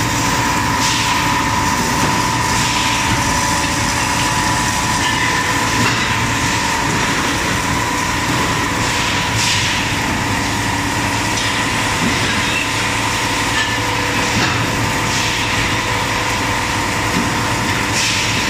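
A plastic fast-food container thermoforming production line running: a steady machine din with a constant tone, and short hisses every few seconds as it cycles.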